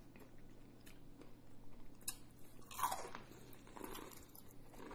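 Quiet biting and chewing of crispy-breaded spicy fried chicken, with crunching from the breading.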